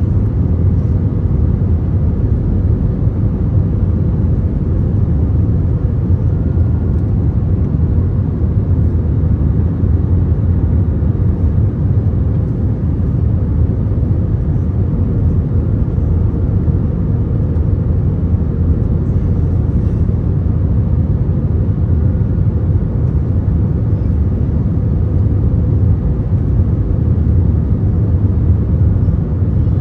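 Steady low rumble of engines and airflow inside the cabin of an Airbus A321 airliner, even throughout with no distinct thumps or changes.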